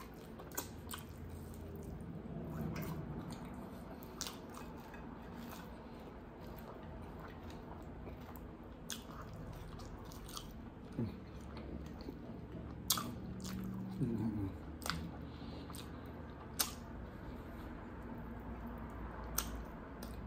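Close-miked chewing and biting of sesame chicken wings, with sharp wet mouth clicks and smacks scattered irregularly through it.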